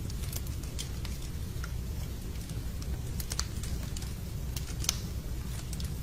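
Log fire crackling in a fireplace: irregular sharp pops and snaps over a steady low rumble of the flames, with one louder pop about five seconds in.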